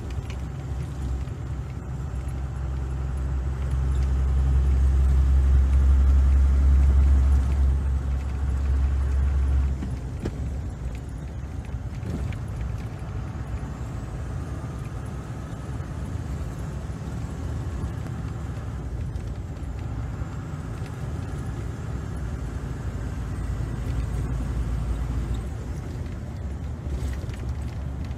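Engine and road noise of a moving vehicle: a steady low rumble that grows louder a few seconds in and drops off sharply near ten seconds, then carries on at a lower level.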